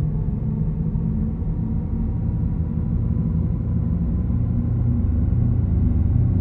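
Audi e-tron GT's synthesised driving sound (e-sound): a low, steady electronic hum made of several held tones, swelling slightly near the end.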